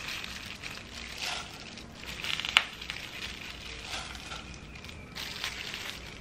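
Soft rustling and handling noises as a plastic-gloved hand lays strips of young coconut onto a tray of khanom krok, with one sharp click about two and a half seconds in.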